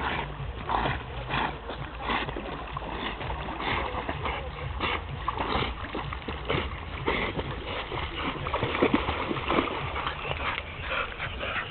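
A Parson Russell terrier and a larger black dog paddling and splashing through the water together, a stick held between them, in short splashes about twice a second, with dog noises mixed in; near the end they climb out of the water.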